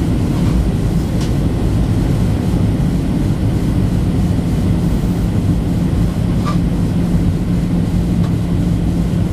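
Steady cabin noise of a Boeing 737-700 in flight: air rushing past the fuselage and the CFM56-7B turbofan engines running, with a steady low drone underneath.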